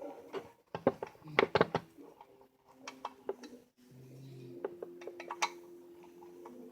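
Small metal toy-train parts clinking and clicking against each other as they are handled, a series of sharp irregular taps, with a faint steady hum from about four seconds in.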